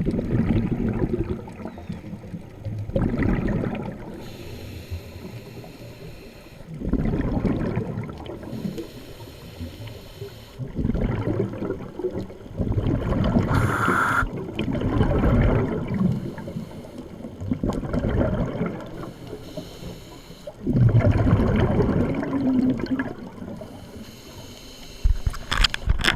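A scuba diver breathing underwater through a regulator: a bubbly rumble of exhaled air every three to four seconds, with a quieter hiss of inhaling between them.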